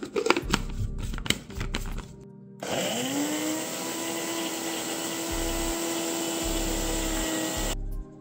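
Countertop blender pureeing strawberries: the motor spins up quickly to a steady pitch, runs for about five seconds, then cuts off suddenly. Before it starts, a short run of clicks and knocks.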